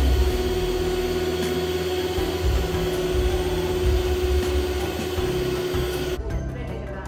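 Electric stand mixer running steadily with a constant hum, then cutting off suddenly about six seconds in.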